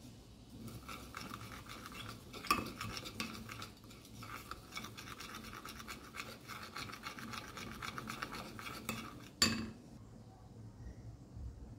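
A plastic spoon stirring toothpaste and water in a glass bowl: a fast, steady run of small scrapes and clicks against the glass. About nine seconds in there is one louder knock, as the spoon comes to rest against the bowl, and then the sound goes quiet.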